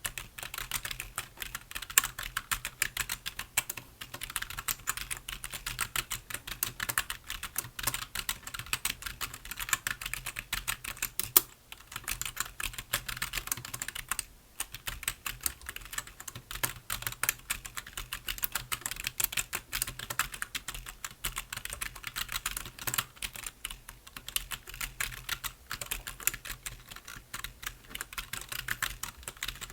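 Continuous fast typing on a computer keyboard: dense, irregular key clicks, with two brief pauses around the middle.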